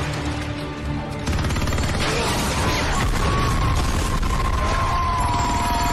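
Action-film soundtrack: an explosion bursts in about a second in, and its low rumble carries on under a music score.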